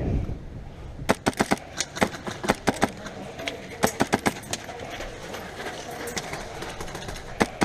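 Airsoft gun firing in short rapid bursts of several shots each, about ten a second: one burst about a second in, more around two to four and a half seconds in, and another near the end.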